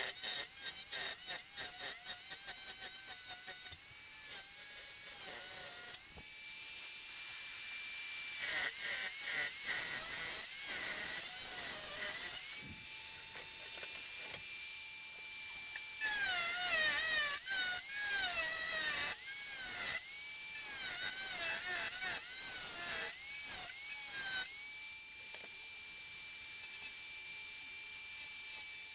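Handheld electric power tool motor repeatedly triggered: it spins up to a steady high whine, holds for a second or several, wobbles in pitch as it is loaded against the work, and winds down again, many times over.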